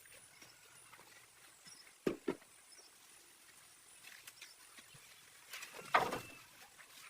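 Two quick knocks about two seconds in, then a louder knock near the end with a brief ringing tone, as of objects being handled or set down.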